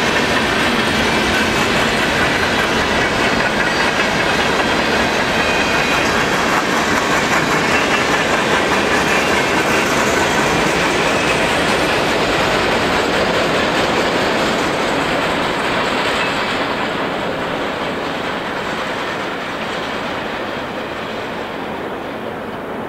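Freight cars of a long train rolling past at speed: a steady rumble and clatter of steel wheels on the rails, with a thin high squeal of wheels in the first several seconds. The sound grows fainter over the last third as the cars move away.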